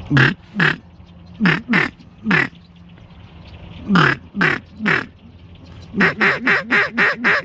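Duck call blown in hen-mallard quacks: a pair, then two groups of three, then a quick run of about eight, each quack dropping in pitch.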